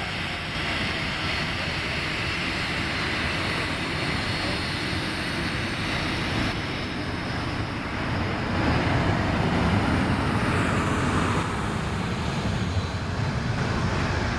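Airliner engines running with a steady, broad roar that grows somewhat louder about eight and a half seconds in.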